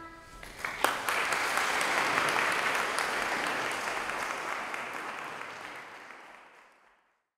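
Audience clapping, starting about a second in, holding steady and then fading out near the end.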